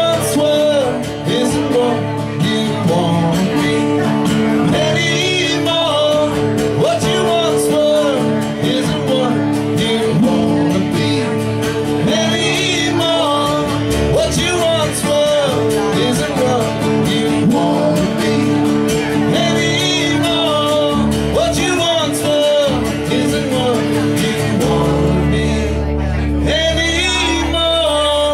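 Live acoustic guitars playing a country-bluegrass style tune, chords held under a picked lead line with bent notes. The playing thins out near the end.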